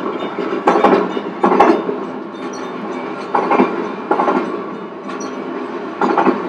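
O gauge model train running along the track: a steady rolling rumble with clickety-clack in pairs as the wheels cross the rail joints, a pair about every two and a half seconds.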